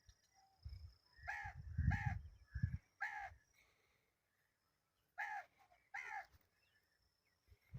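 Ringneck parakeet giving short harsh squawking calls: about four in a quick run, then two more after a short pause. A low rumbling noise sits under the first run of calls.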